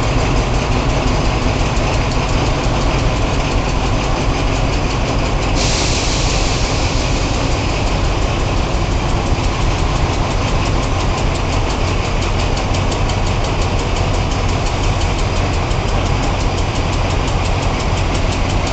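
TCDD diesel locomotives idling at a station platform: a steady, loud, low engine rumble. About six seconds in, a loud hiss suddenly joins and carries on.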